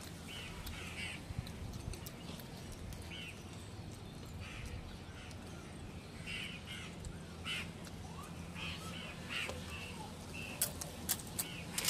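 Crows cawing over and over, short calls coming every second or so. Near the end, four sharp crisp crunches as a papad is bitten.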